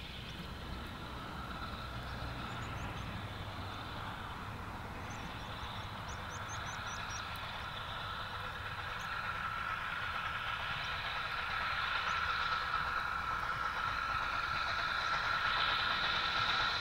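Narrow gauge steam locomotive working a train, heard from a distance and growing steadily louder as it approaches.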